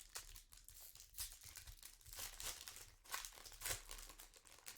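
Foil trading-card pack wrapper crinkling and tearing as it is opened, in an irregular run of crackles.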